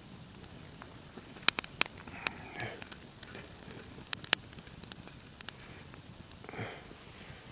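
Campfire crackling, with a scattering of sharp, irregular pops from the burning wood.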